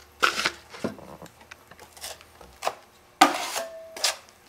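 A drywall patch piece rubbing and scraping in a few short strokes as it is handled and test-fitted in the hole, the loudest scrape about three seconds in.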